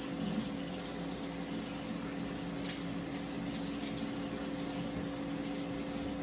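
Air fryer running: a steady fan whir with a constant hum.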